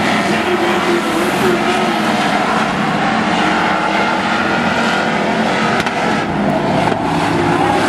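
Engines of several demolition race pickup trucks running at speed around an oval track, a loud, steady mix of engine noise.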